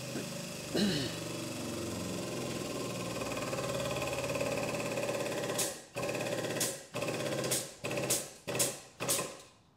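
Pump of a body-jig dozer running steadily as it pulls a crash-damaged car chassis leg, then worked in several short bursts that each cut off sharply, before it stops near the end.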